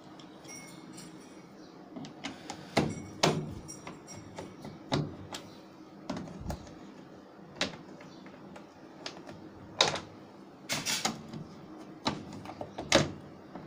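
Irregular sharp clicks and taps of a screwdriver turning and slipping on the screws of a washing machine's plastic top panel while the screws are undone. The loudest clicks come a little before the end.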